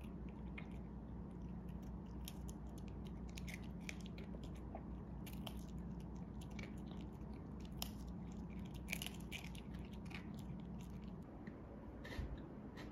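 Toy poodle gnawing a stick chew treat: irregular wet clicks and crunches of teeth on the stick, stopping near the end.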